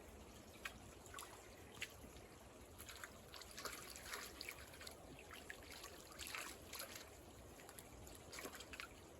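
Faint, irregular scraping and small clicks of dirt, sand and rocks being moved by hand, as a buried brick is worked loose from the creek bank.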